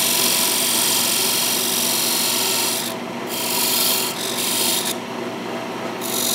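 Parting tool cutting a groove into a spinning mahogany bowl blank on a wood lathe: a steady hissing scrape over the lathe's hum. The tool is lifted off the wood briefly near the middle and for about a second near the end, leaving only the lathe running.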